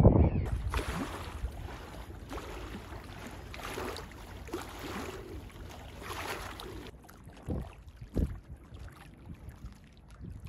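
Wind rumbling on the microphone with water lapping at the river's edge, and two short low gusts a little past the middle.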